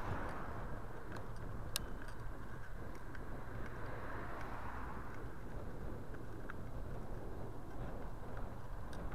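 Wind rushing over the microphone of a bicycle-mounted camera, mixed with road noise while riding. Oncoming cars swell past at the start and about four seconds in, and there are a few light clicks, the sharpest near two seconds in.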